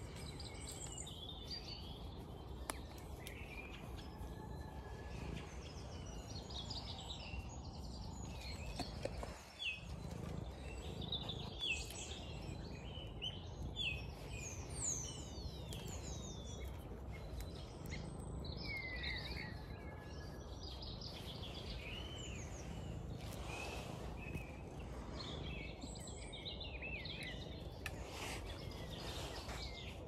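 Woodland birdsong: many small songbirds singing and calling at once, a thick overlap of short whistles, chirps and falling trills, over a steady low background rumble.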